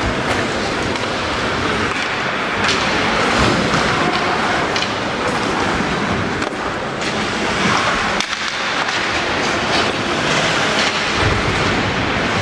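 Ice hockey rink noise during play: a steady wash of skates scraping on the ice and arena noise, with scattered knocks from sticks and puck.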